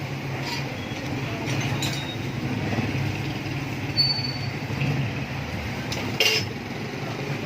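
A few short metallic clinks of tools and parts being handled, over a steady low hum.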